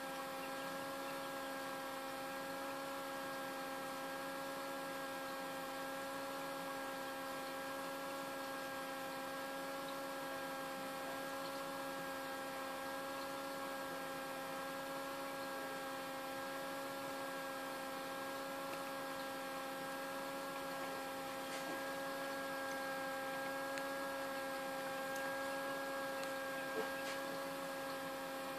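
Small egg incubator's fan motor humming steadily with a fixed pitch, with one short click near the end.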